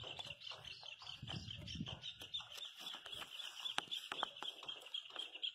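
An animal's high, rapidly pulsing trill, steady throughout. Several sharp clicks and rustles from grapevine leaves and stems being handled come in between, the loudest around four seconds in.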